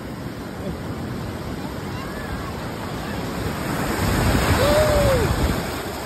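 Ocean surf washing and churning in shallow water. It swells louder about four seconds in as a wave surges through.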